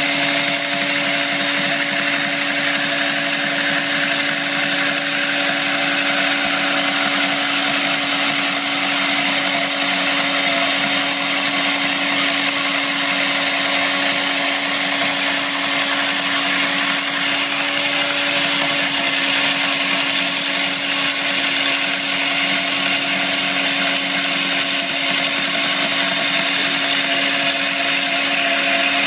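Hydraulic chainsaw for concrete and stone running steadily, a constant hum with a dense hiss over it and no pauses.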